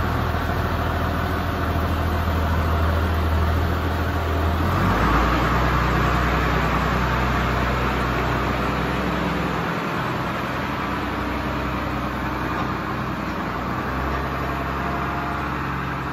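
New Holland 8160 tractor's six-cylinder diesel engine running as the tractor pulls away; its low note shifts lower about five seconds in, and it grows a little quieter as the tractor drives off.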